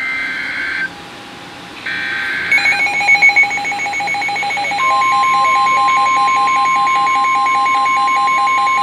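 NOAA Weather Radio Emergency Alert System warning coming over a weather radio. It opens with two short bursts of SAME digital header data. Then the radio's rapid pulsing alert beep starts, and a couple of seconds later the steady 1050 Hz warning alarm tone joins it and holds.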